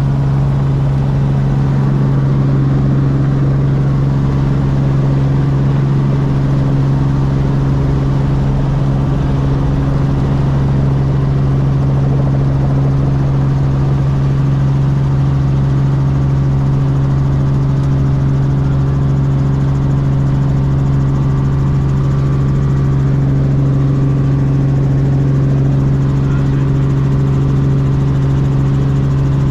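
Robinson R44 Clipper helicopter's piston engine and rotors running steadily: a constant drone with a strong low hum that does not change.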